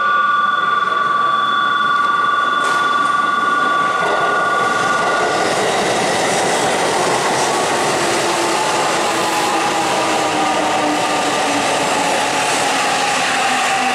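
Sanyo 5000 series electric train running into the platform and slowing, with wheel-on-rail rumble and a motor whine that falls steadily in pitch as it brakes. A steady high two-note tone sounds over the first five seconds.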